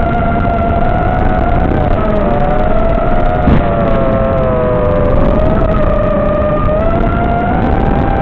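Electric motors and propellers of an FPV aircraft whining steadily, with two close pitches that drift lower through the middle and rise again near the end as the throttle changes, over a steady rushing noise. A brief knock about three and a half seconds in.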